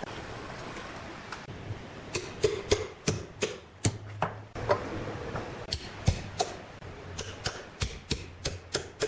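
Sawn wooden boards knocking and clacking together in an irregular run of sharp knocks, two or three a second, starting about two seconds in, over a steady low machine hum.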